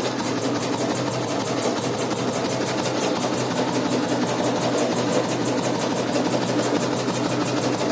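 Royal Enfield Bullet 350's cast-iron single-cylinder four-stroke engine idling steadily, with an even, rapid beat of firing pulses.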